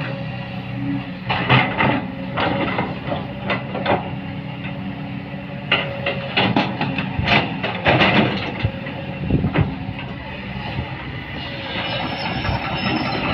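Excavator's engine running under load with repeated metallic clanking and rattling from its tracks and working parts, and a high squeal near the end.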